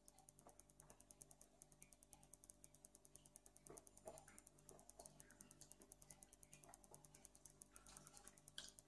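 Near silence: faint room tone with a fast, even ticking of about eight ticks a second, and a few soft small noises around the middle.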